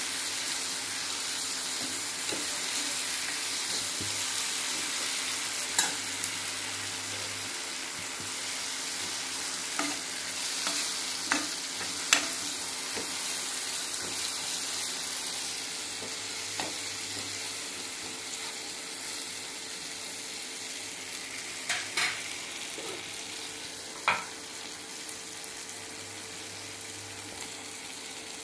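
Chopped tomatoes and green peppers sizzling in oil in a pan while being stirred with a spatula, with a few sharp knocks of the spatula against the pan.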